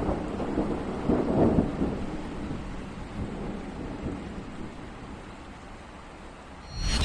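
Thunder rumbling over rain, two deep rolls near the start that die away into a fading hiss of rain. Right at the end a sharp ringing hit sounds.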